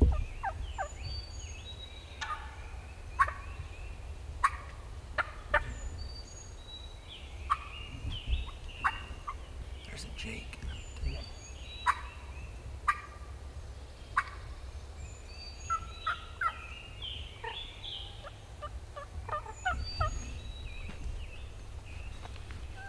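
Wild turkey gobbler gobbling again and again at close range, each gobble a short, loud rattling burst.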